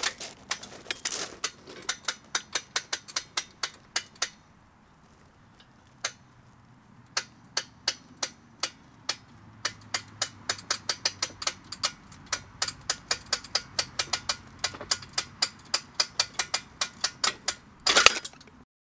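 A hydraulic crane is hand-pumped in a magnet pull test, making a steady run of sharp clicks about three a second with a pause of a few seconds early on. Just before the end there is a loud, brief clatter as the double-sided fishing magnet breaks free of the steel plate.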